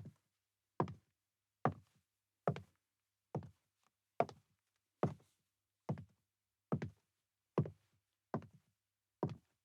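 High heels walking slowly on a wooden floor: about a dozen even footsteps, a little under one a second, each a sharp click followed by a softer second tap.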